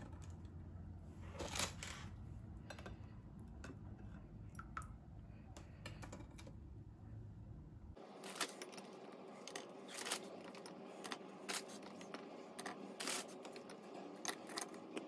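Faint, scattered soft taps and clicks as milk-soaked ladyfinger biscuits are set down in a glass baking dish. About halfway through a low background hum cuts out, and the taps come more often.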